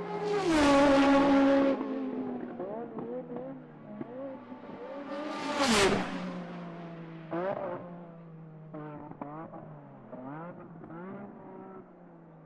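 NASCAR V8 stock cars racing past. One car goes by close at the start with its engine note dropping, and a second passes close and fast about six seconds in. Then fainter engines rise and fall again and again as more cars accelerate by, growing quieter toward the end.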